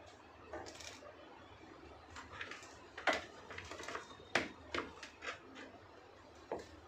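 Irregular short knocks and clicks of objects being handled, about a dozen in all, the sharpest about three seconds in and again a second and a half later.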